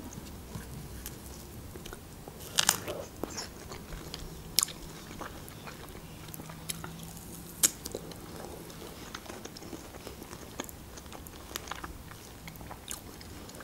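Close-miked mouth sounds of a person biting into and chewing fresh strawberries: soft wet chewing with a few sharp smacks, about three, four and a half and eight seconds in.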